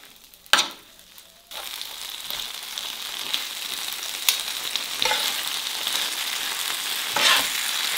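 Tomahawk steak pieces, tomatoes and onions in sauce sizzling on a hot griddle tray, with a metal spatula and spoon clicking and scraping as the food is stirred and turned. A single sharp tap about half a second in; the sizzle comes in about a second and a half in and holds steady.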